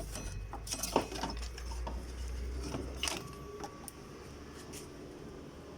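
Scraping, clicks and light knocks of hands and metal parts as the loosened serpentine belt is worked off the engine pulleys. There is a low rumble through the first half, with sharper knocks about a second in and about three seconds in.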